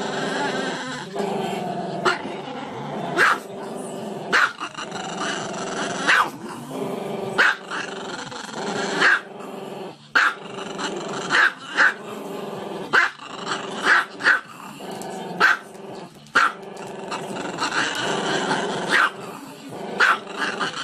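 Small black-and-tan dog with its muzzle raised, howling and growling in a long, wavering voice broken by sharp yips about once a second.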